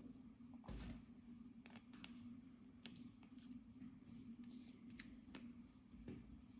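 Faint, irregular sticky clicks and crackles of clear slime being mixed and squished, over a low steady hum.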